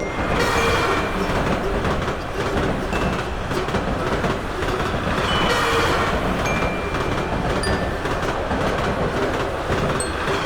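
A train running past on the rails, a steady rumble.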